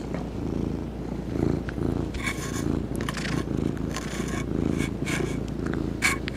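Domestic cat purring right against the microphone: a loud, steady low purr that swells and eases in a regular rhythm. Scratchy rustles join from about two seconds in as its fur rubs close by.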